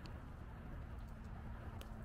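Outdoor walking ambience: a constant low rumble, a faint steady hum from about halfway in, and two brief high chirps, one near the start and one near the end.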